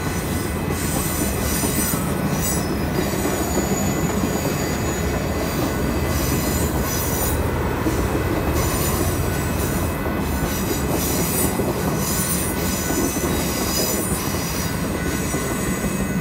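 Union Pacific yellow passenger cars rolling past at close range: a steady rumble of steel wheels on the rails with thin high-pitched squealing from the wheels, dropping off at the very end as the last car clears.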